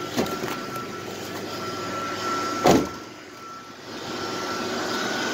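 Ford E450 bus engine idling just after a cold start in 22°F weather, with a steady high tone running alongside. A loud thump about two and a half seconds in, the bus door shutting.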